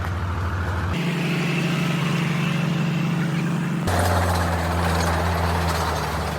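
Heavy diesel machinery engine running steadily, its low tone shifting abruptly about a second in and again about four seconds in.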